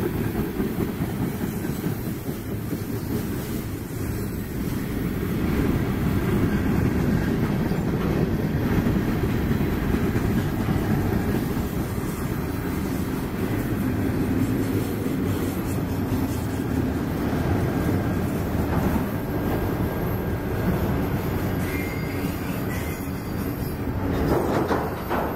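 Freight cars of a mixed manifest train rolling past: a steady rumble and rattle of steel wheels on the rails.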